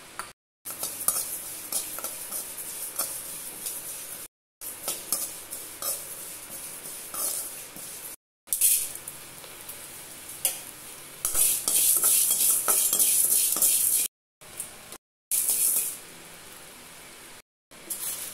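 A spatula stirring and scraping dry seeds and grains in an aluminium kadai as they dry-roast, with a light crackle and scattered clinks. It breaks off briefly several times. From about 11 to 14 s there is a louder, steady hiss.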